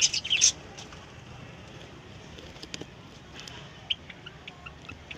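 Country chickens calling: a loud burst of squawking calls at the start, then a few scattered short, high-pitched peeps.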